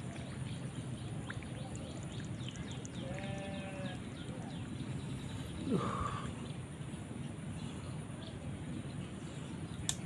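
Steady outdoor background with a distant animal call about three seconds in, a second brief, falling call near six seconds, and a sharp click near the end.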